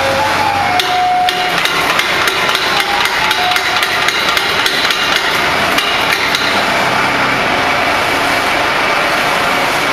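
Rapid metal hammering, several blows a second, over the steady noise of factory machinery; the hammering stops about six and a half seconds in.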